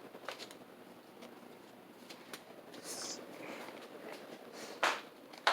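Modern Fan Company Cirrus ceiling fan with a GE skeletal stack motor, running on high: a faint, steady noise of air and motor, with a few light ticks and two sharp clicks near the end.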